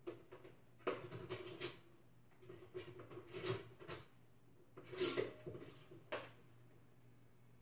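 Intermittent clattering and rustling of things being handled in a kitchen, in several short groups about a second apart, over a faint steady hum.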